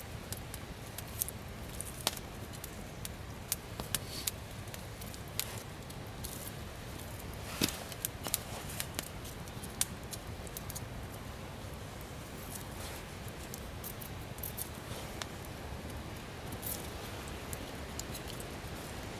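Fixed-blade bushcraft knife shaving curls down a wooden stick to make a feather stick: repeated short scraping cuts of steel through wood, with sharp irregular clicks.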